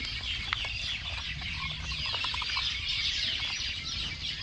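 A dense chorus of high, rapidly repeated chirps, each sliding down in pitch, with a few light clicks among them.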